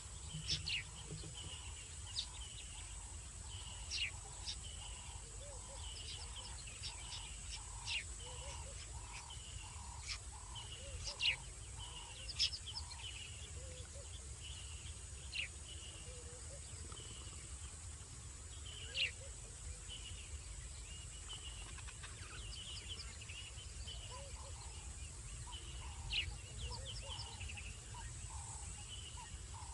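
Wild birds calling in the bush: repeated short chirps and sharp descending whistles, with a run of soft lower notes about twice a second. A steady high-pitched hum and a low background rumble run underneath.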